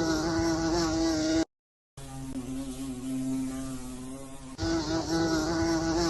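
A steady buzzing drone held on one pitch. It cuts off suddenly about a second and a half in, returns half a second later at a lower pitch, and steps back up to the higher, louder pitch near the end.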